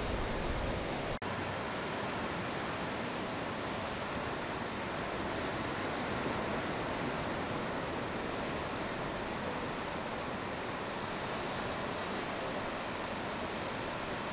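Steady rush of ocean surf, waves breaking and washing without let-up, with a momentary gap about a second in.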